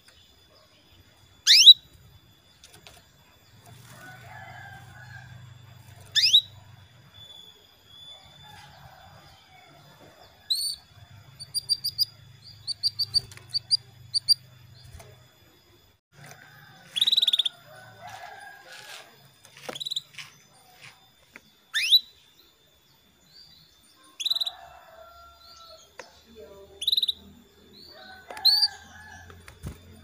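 Female canary calling: single sharp, high chirps every few seconds, with a quick run of short repeated notes about eleven seconds in. This is the call played to prompt male canaries to sing.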